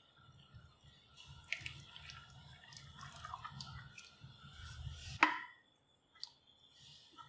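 Simmering sambar bubbling and popping in a pan while thick cooked dal is poured in with soft wet plops. A single sharp clink of metal against the pan about five seconds in is the loudest sound, after which only a few faint ticks remain.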